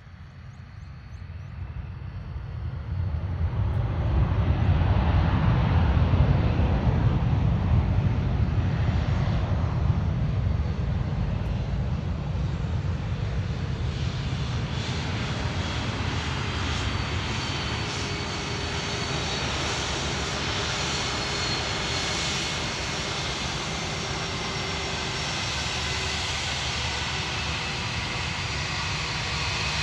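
Jet airliner arriving: the engine noise swells over the first few seconds and is loudest around five or six seconds in. It then holds steady as a continuous jet rumble, with a high engine whine growing in the later part.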